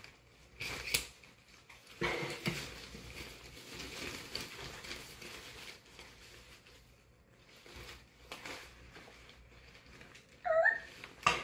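Umbrella being handled and opened: fabric rustling and light knocks and clicks from its metal frame. Near the end comes a short high-pitched cry, followed by a sharp click.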